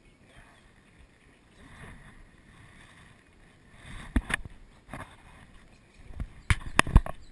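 A faint background hush, then a series of sharp knocks and bumps against the body-worn camera as the angler moves while playing a fish on a match rod: a couple about four seconds in, one at five seconds, and three or four close together near the end.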